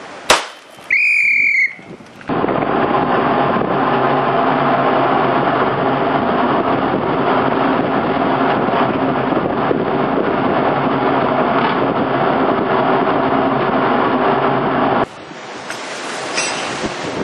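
A sharp click and a short high beep, then a steady machine drone with a low hum that cuts off suddenly near the end, giving way to wind buffeting the microphone at sea.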